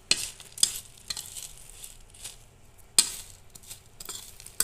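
A metal spoon stirring a dry puffed-rice chaat mix on a plate: a crisp rustling with several sharp clicks of the spoon on the plate, the loudest about three seconds in.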